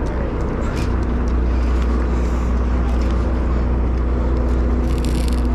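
Sportfishing boat's engine running with a steady low drone and hum, with a brief hiss near the end.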